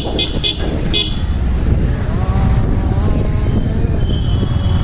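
Steady wind and road rumble while riding, with a quick run of short high beeps in the first second and a brief pitched tone rising in steps in the middle.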